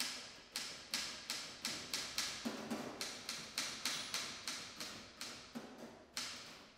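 Manual typewriter being typed on at a steady pace, about three key strikes a second, each clack fading briefly, with a short pause near the end.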